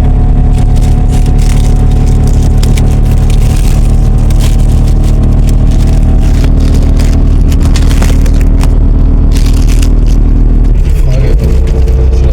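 Motor vehicle running: a loud, steady low drone, with scattered rattles and scrapes on top. The drone's pitch shifts slightly near the end.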